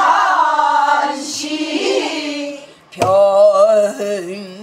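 A woman singing pansori in a full voice with bending pitch and wide vibrato, keeping time herself on a buk barrel drum; one drum stroke lands about three seconds in.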